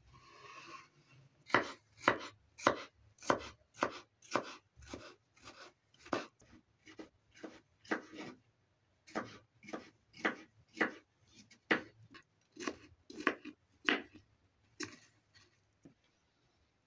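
A kitchen knife chopping cucumber on a plastic cutting board, in steady strikes about two a second. There is a short break about halfway, and the chopping stops near the end.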